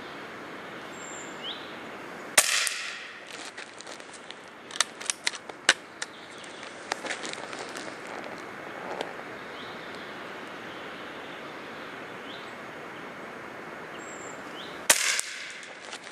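Two shots from a Hatsan AT44-10 .22 PCP air rifle, about twelve seconds apart, each a sharp crack with a short ringing tail. A run of small clicks follows a second or two after the first shot, over a steady background hiss with faint bird chirps.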